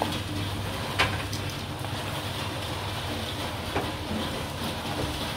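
Chicken and potato curry simmering in a wok over a steady low hum, with two sharp knocks, about a second in and near four seconds.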